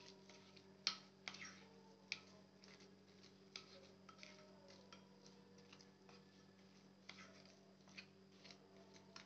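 A metal spoon scraping and clicking against a ceramic bowl as it stirs a thick ground poppy-seed, mustard and coconut paste. The clicks are quiet and irregular, and the sharpest comes about a second in.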